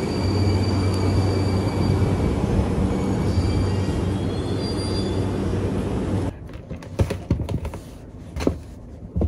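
Train running: a steady low rumble with faint high whines. It cuts off about six seconds in, and a paper shopping bag is then handled, with a few soft rustles and taps.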